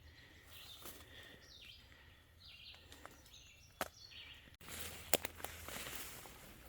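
Faint outdoor ambience with faint bird calls in the first few seconds and a single sharp click near the middle.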